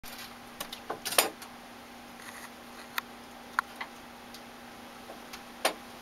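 Golden-fronted woodpecker pecking at a trailer window and screen: sharp, irregular taps, a quick cluster of several about a second in, then single taps a second or two apart.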